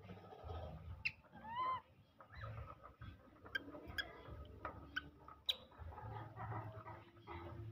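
Young macaques giving short, high squealing calls, one clear rising-and-falling call about a second and a half in, amid sharp clicks and rattles from the wire cage bars they are climbing on.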